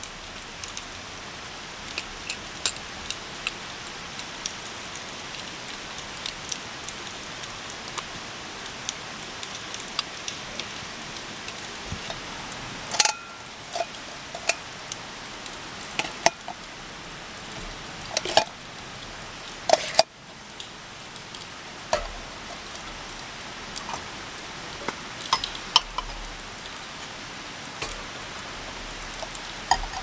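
Steady rain falling, with scattered sharp drips and taps and a few louder knocks as small camping cookware and cups are handled.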